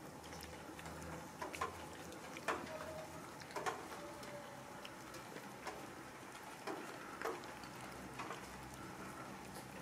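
Cats eating from plastic food tubs: faint, irregular wet chewing clicks and smacks, one or two a second.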